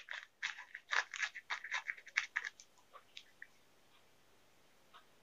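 Plastic biscuit wrapper crinkling as it is pulled open, a quick run of faint crackles for about two and a half seconds, then a few isolated ticks.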